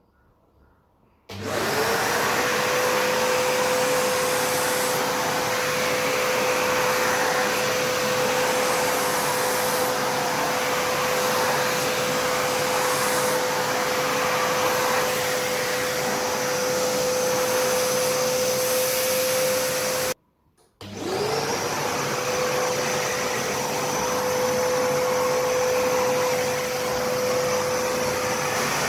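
Karcher WD 3 wet-and-dry vacuum cleaner switching on about a second in, its motor spinning up and then running steadily with a whine over the rush of suction. Past the middle it cuts out for a moment, then spins up again and runs on.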